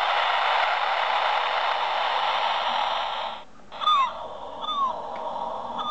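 Novelty seagull box playing repeated gull cries over a steady wash of surf. About three and a half seconds in, the surf noise cuts out and a sharp click follows, while the gull cries carry on.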